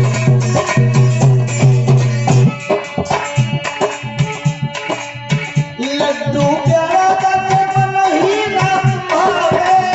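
Live bhajan music: hand drums beat a quick, steady rhythm under harmonium tones, with a heavy low drum pulsing for the first couple of seconds. About six seconds in, a male voice starts singing over the accompaniment.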